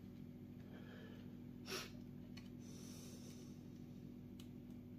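Quiet room tone with a steady low hum, and one short breathy hiss about two seconds in.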